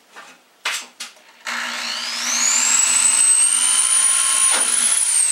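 Corded electric drill boring a pilot hole through black steel stovepipe: two short knocks, then the motor starts about a second and a half in, its whine rising as it spins up, holding high, and beginning to wind down near the end.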